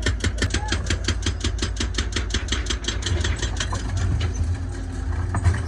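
Mini excavator's hydraulic breaker hammering concrete in a fast, even rhythm of about eight blows a second over the steady hum of the diesel engine. The blows fade out about three and a half seconds in, leaving the engine running.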